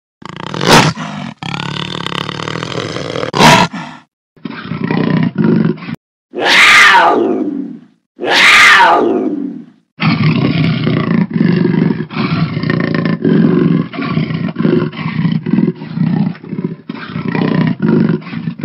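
Spliced big-cat calls, presented as a jaguar: rough growls, then two long roars falling steeply in pitch about six and eight seconds in, then a quick run of short, chopped grunting growls.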